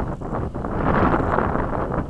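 Wind buffeting the microphone: a rough, gusting rush that dips briefly near the start and then swells again.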